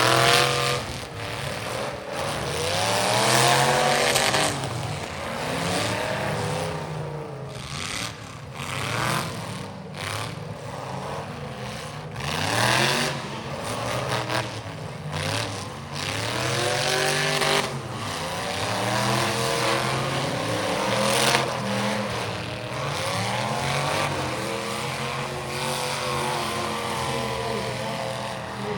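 Several demolition derby car engines revving up and down over and over, overlapping one another, with scattered sharp bangs.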